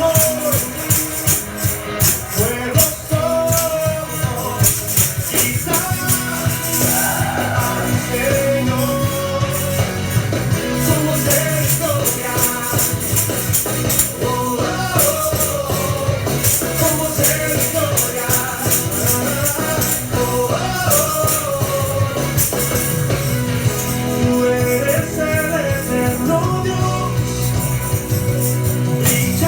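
Worship song: a singing voice over a steady beat with tambourine.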